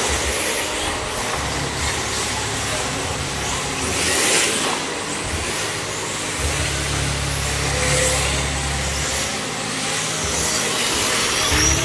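RC drift cars sliding around a polished indoor track, their hard plastic tyres hissing on the floor, with a louder hiss as a car slides close by about four seconds in and again near the end.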